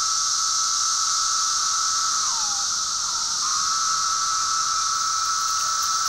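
Male 17-year periodical cicadas calling to attract females: a steady high chorus hiss, with one near call holding a long even whine that drops in pitch at its end about two seconds in, then starts again a second later.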